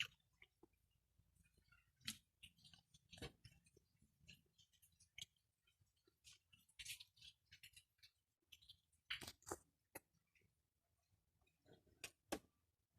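Near silence with scattered faint clicks and rustles, a few slightly louder about two, three and nine seconds in.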